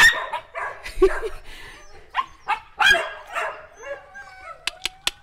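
A group of dogs barking in short, repeated barks, then a high, wavering dog whine from about four seconds in. Three sharp clicks come near the end.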